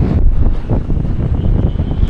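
Strong gusty wind buffeting the microphone, a loud, uneven low rumble.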